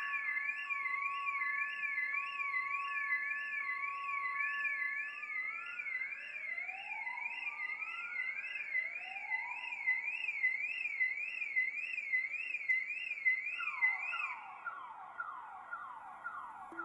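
Electronic siren warbling quickly up and down, about two to three times a second, over steady tones and a few slow rising glides. About fourteen seconds in, the warble gives way to quick falling sweeps repeating about four times a second.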